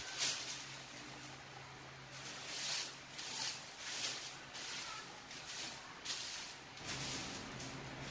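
A sheet of paper rustling and crackling in a series of short, irregular swishes as it is laid over a shirt and smoothed flat by hand, over a faint low steady hum.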